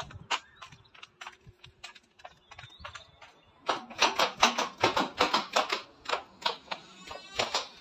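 Footsteps clacking on hard tiled floor and stone stairs. The steps are sparse and faint at first, then about halfway in they turn into a quick run of sharp clacks, about four or five a second, going down the stairs.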